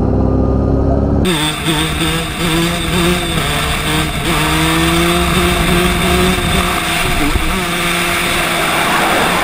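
Motorcycle engines on the move, heard from onboard cameras with heavy wind rush. About a second in, a low, dense engine note cuts abruptly to a different bike, an orange off-road-style machine, whose engine note is higher, steady and wavering slightly.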